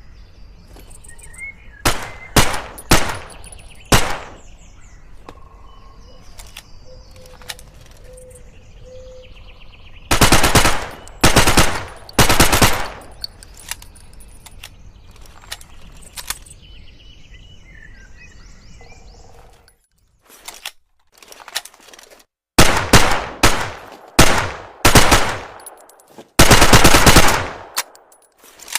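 Homemade Sten submachine gun firing, first a few single shots, then several rapid bursts of automatic fire, the last and longest near the end.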